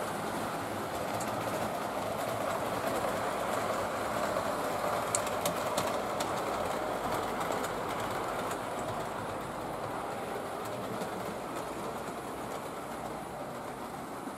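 Model railway trains running on an analogue-controlled layout: a steady whirr of small locomotive motors and wheels rolling on the track, with a few faint clicks about five to six seconds in.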